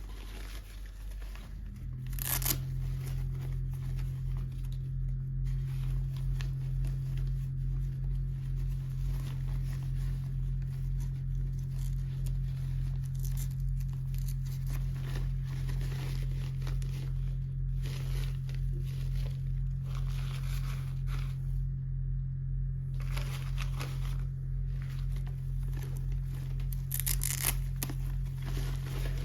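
Toy packaging being torn open and crinkled in repeated bursts of handling, the sharpest about two seconds in and near the end, over a steady low hum.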